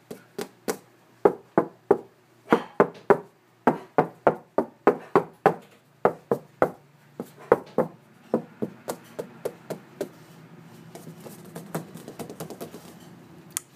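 A rapid, irregular series of sharp knocks, about three a second, like a hand tapping on wood to catch a puppy's attention. The knocks grow fainter after about eight seconds.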